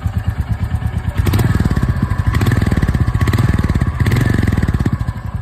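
Royal Enfield Goan Classic 350's 349cc J-series single-cylinder engine running with its even exhaust thump. The engine gets louder about a second in and eases back near the end.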